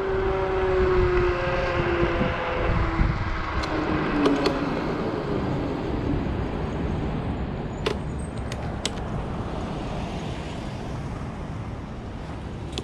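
Zero 10x electric scooter being ridden: the hub motor's whine falls slowly in pitch over the first few seconds as the scooter slows, over a steady rumble of wind and road. A few light clicks come about two-thirds of the way in.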